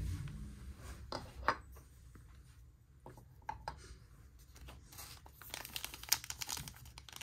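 A few light clicks, then from about five and a half seconds in the quick crinkling and tearing of a foil Panini Chronicles trading-card pack being torn open.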